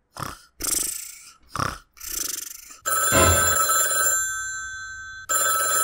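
Cartoon snoring, four short rasping breaths, then an old-style telephone bell rings twice, the first ring starting about three seconds in and fading before the second.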